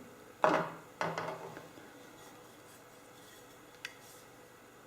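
Parts of a water filter-reducer being handled: two knocks and some scraping about half a second and a second in, then a small click later on.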